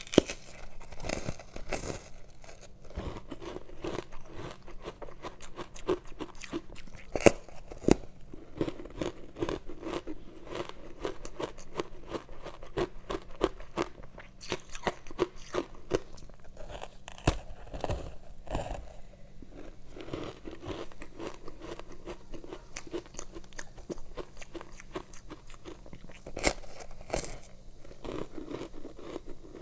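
Someone biting into and chewing powdery ice coated in matcha powder: a steady run of crisp crunches, with several louder sharp bites standing out.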